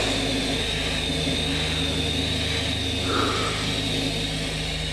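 Sandblasting nozzle firing abrasive under a lot of air pressure: a steady rushing hiss with a thin, steady whistle-like tone above it and a low hum beneath.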